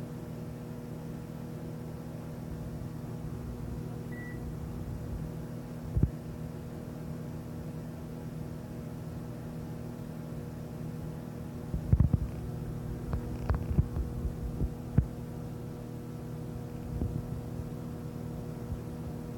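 Microwave oven running with a steady electrical hum. It is broken by one sharp click about six seconds in and a cluster of sharp clicks and pops a few seconds past the middle.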